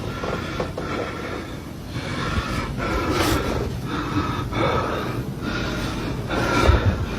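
A person breathing heavily and fast close to the microphone, about one breath a second.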